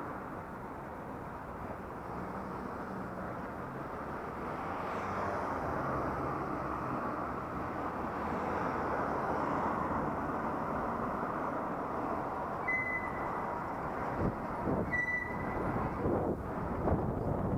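Steady wind rush and road noise on a helmet-mounted action camera while riding in traffic, with vehicle engines running underneath. Two short high beeps sound about thirteen and fifteen seconds in, and near the end there are a few sharper knocks and gusts of wind on the microphone.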